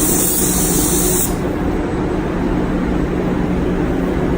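Paint spray gun hissing as it sprays primer, cut off about a second in. Under it, the spray booth's extraction fans run with a steady drone.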